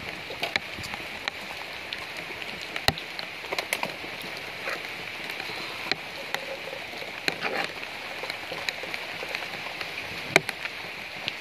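Several dogs eating from a plastic plate: irregular wet smacks, licks and clicks of chewing and lapping, over a steady high-pitched hiss.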